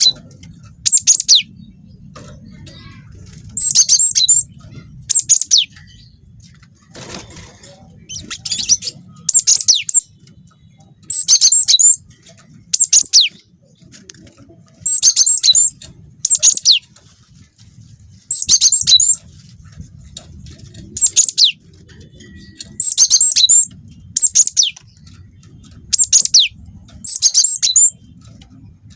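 Cinereous tit (gelatik batu) singing: short, loud, high phrases of quick falling notes, repeated about every one to two seconds, over a faint low rumble.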